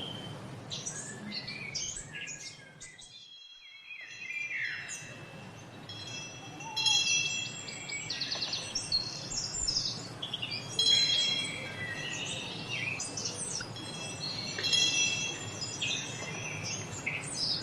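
Songbirds chirping and singing in quick, overlapping phrases, mixed with high metal chimes ringing in several steady, sustained tones. The sound dips briefly about three and a half seconds in, then the chimes and birds carry on.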